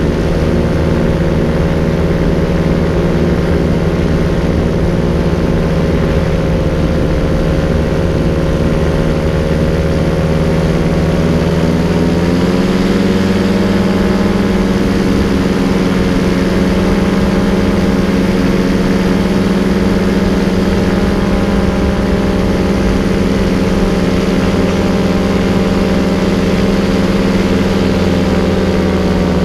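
Paramotor engine and propeller running steadily in flight, the pitch stepping up about halfway through and holding, then easing slightly near the end.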